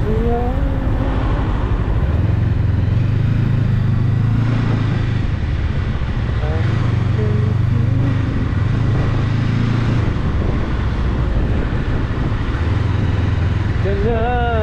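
Rusi Cyclone 400S motorcycle engine running under way, with a steady rush of wind and road noise. The low engine drone drops away twice for a couple of seconds and comes back.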